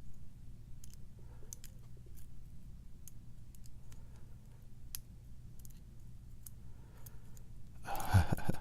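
Scattered faint small metal clicks as a serrated spool pin is worked into the pin chamber of an American 1100 padlock, the pin catching on its serrations. About 8 seconds in there is a louder rustle with a low knock.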